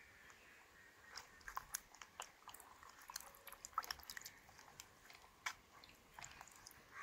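Faint, scattered small splashes and knocks as a hand turns two passion fruits in a bucket of water.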